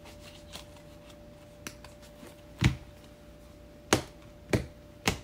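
Tarot cards handled and dealt onto a fabric-covered table: a few soft clicks, then four sharp taps in the second half as the deck is tapped and cards are set down.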